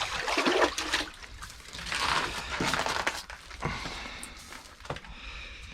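Water splashing and sloshing in an ice-fishing hole, with irregular wet handling noises and a few sharp clicks, as a small burbot that has just been caught is handled.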